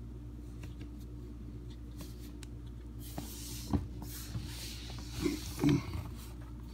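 Hand-handling noises from a dishwasher water inlet valve and its brass fitting being turned and screwed together: faint clicks and soft rustling, with a dull knock just under four seconds in and a couple more around five and a half seconds.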